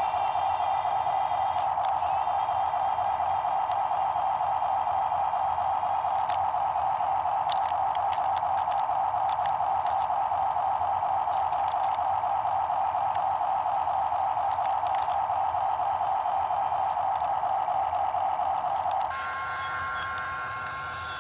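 Small electric gear motors of a radio-controlled toy excavator whining steadily as it drives on its tracks and works its arm, with a few faint clicks. About two seconds before the end the whine drops away to a quieter, different hum.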